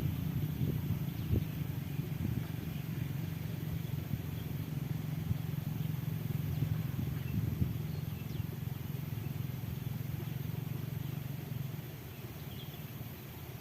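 A vehicle engine running steadily, low-pitched, getting quieter about twelve seconds in. Faint bird chirps sound over it now and then.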